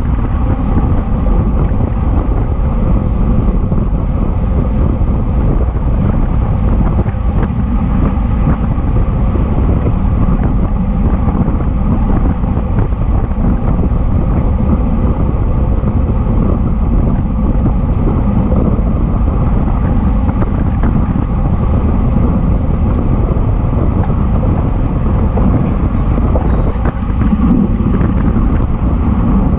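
Wind buffeting the microphone of an action camera on a bicycle riding at race speed: a loud, steady, low rumble with road noise underneath.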